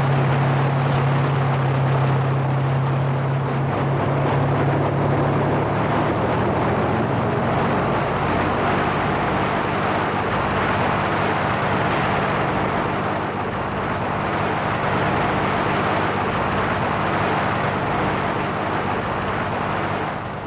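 P-51 Mustang's Merlin V-12 engine at take-off power as the fighter makes its take-off run. A steady deep drone turns rougher and fuller after about six seconds as the plane passes close by.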